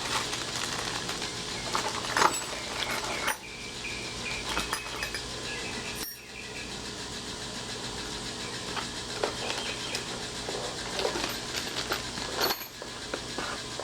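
A new deadbolt lock being unboxed: packaging handled and rustling, with scattered small clicks and clinks of metal lock parts and keys.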